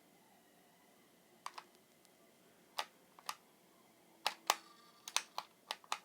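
Sharp plastic clicks from a toy RC car's on-off slider and its remote's buttons being worked, about a dozen in uneven bursts, more of them and closer together in the second half.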